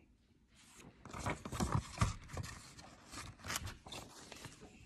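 A sheet of paper rustling and crinkling as it is handled, a scatter of crisp rustles and taps starting about a second in.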